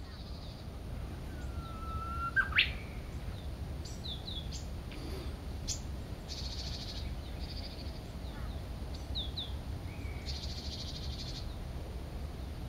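Mixed wild birdsong. About two seconds in, a long whistled note swings sharply upward; this is the loudest call. Short high chirps and two buzzy trills follow over a steady low rumble.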